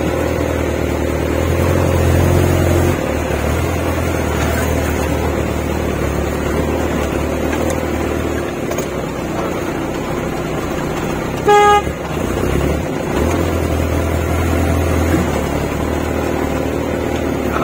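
Off-road 4x4 engine running, heard from inside the cab, its low rumble growing louder twice for a second or two. A single short vehicle horn toot sounds a little past halfway through.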